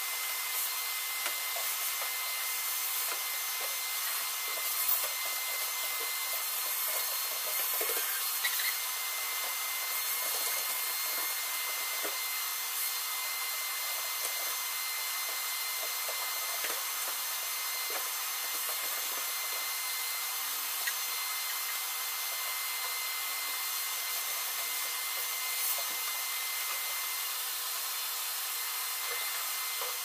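Shop vacuum running steadily, a rush of air with a constant high whine, with scattered clicks and knocks as the nozzle is worked around the car.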